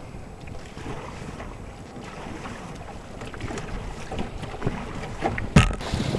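Wind buffeting the microphone over choppy lake waves splashing against an open canoe's hull, with a single sharp knock near the end.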